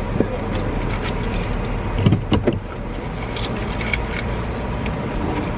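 Steady low idling rumble inside a car's cabin, with small clicks and rustles of someone rummaging in the back seat, and a brief louder sound about two seconds in.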